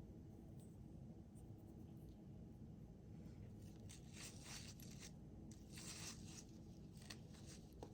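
Near silence with a few faint, short rustles and scrapes of jewelry being handled, the clearest about four to six seconds in.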